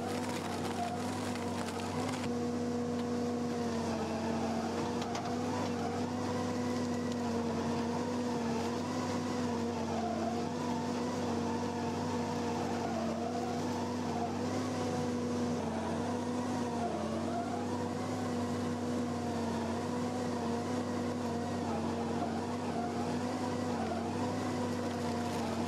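Stump shredder running as its toothed rotor chews tree roots and stumps. It makes a steady mechanical drone that sags briefly in pitch several times as the rotor takes load.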